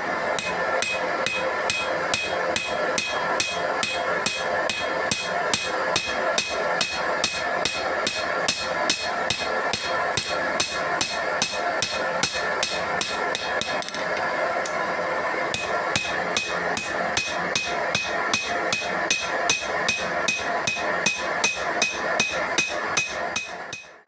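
Hand hammer striking steel on an anvil while forging a knife blade, an even rhythm of about three blows a second, each blow ringing.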